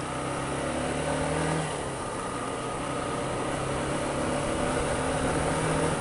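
Small motorcycle engine running at a steady cruising speed, with wind noise over the microphone. Its pitch drops slightly about a second and a half in, then holds.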